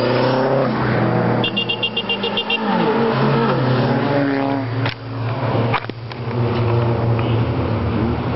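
A line of cars driving past one after another on a winding road, their engines revving up and easing off so the pitch rises and falls with each car. A brief rapid high chirping sounds about two seconds in, and the sound cuts abruptly twice around five to six seconds in before another car's engine rises and fades.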